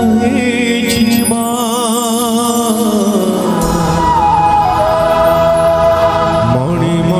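A male singer performing an Odia devotional bhajan live into a microphone, the melody sung with a strong wavering vibrato over steady instrumental accompaniment.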